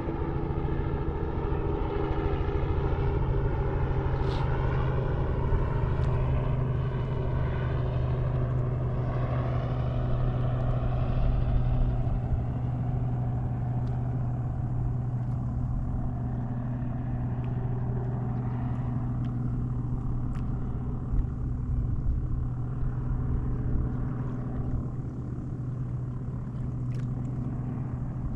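An engine running steadily with a low hum, its higher tones bending in pitch during roughly the first twelve seconds.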